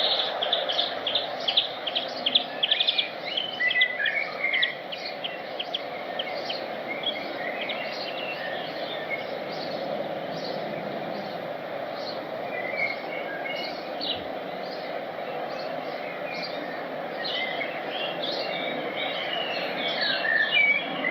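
Small birds chirping: quick runs of short high chirps for the first few seconds, then scattered chirps, and a busier burst again near the end, over a steady background noise.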